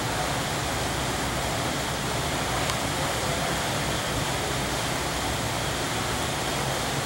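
Steady rushing room noise of a large indoor field house, unchanging throughout.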